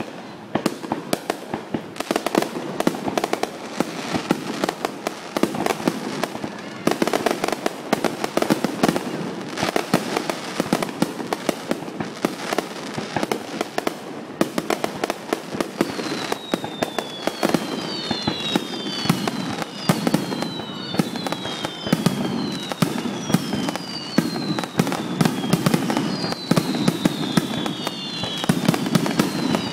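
Aerial firework shells bursting in a rapid, dense barrage of bangs and crackling. From about halfway through, many high whistles fall in pitch, one after another, over the bursts.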